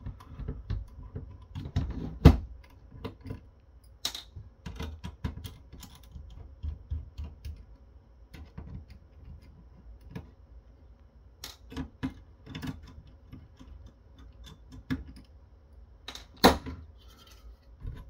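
Irregular small clicks and taps of hands and a small tool removing the CPU blower fan from a mini PC, with a few sharper knocks among them.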